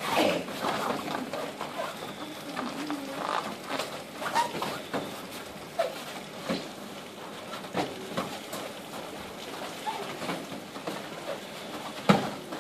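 Martial arts sparring on foam mats: gloved punches and padded kicks landing, and feet thudding and shuffling in an irregular patter. There are louder hits right at the start and near the end.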